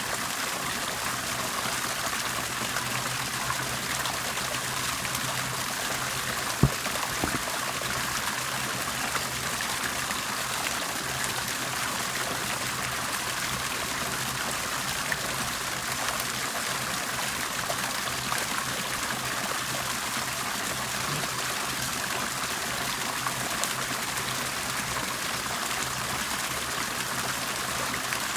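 Bubbling, trickling water running steadily, with a faint steady low hum under it. A single sharp click about six and a half seconds in, followed by a fainter one.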